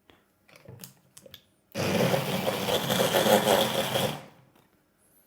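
Electric blender running for about two and a half seconds, whipping egg yolks and oil into a thick mayonnaise emulsion, after a few light knocks of handling.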